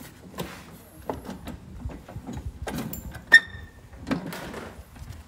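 Scattered knocks, rustles and handling noise around a riding lawn tractor whose engine is not running, with one sharp metallic clink that rings briefly about three seconds in.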